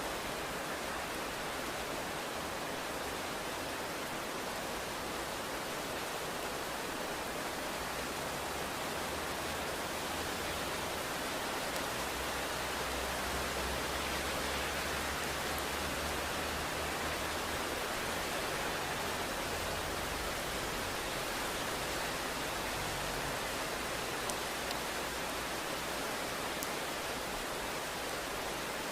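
Steady, dense rainfall hissing evenly, with a faint low rumble of distant thunder underneath from about ten seconds in, lasting about ten seconds.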